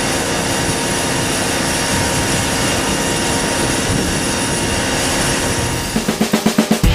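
Steady drone of an aircraft engine, with many fixed tones over a noisy rush. Near the end a quick pulsing beat comes in as music begins.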